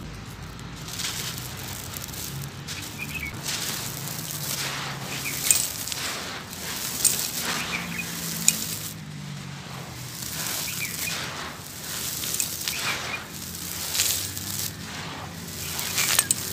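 Dry clumps of sand crushed and crumbled by hand, giving a run of gritty crunching and crackling, with a few sharper cracks around the middle.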